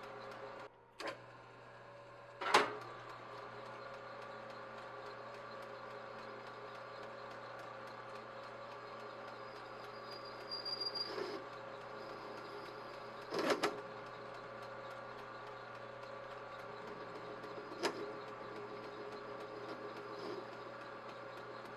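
Small Emco benchtop metal lathe running with a steady motor hum while the end of a rod is faced to length. Several sharp knocks are heard, the loudest a couple of seconds in, and a short high scrape of the cutting tool comes about ten seconds in.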